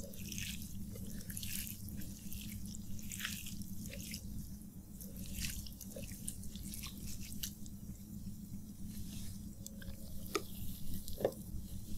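Fingers squeezing and mixing water-soaked rice (panta bhat): an irregular run of soft wet squelches and clicks, with two sharper clicks near the end, over a steady low hum.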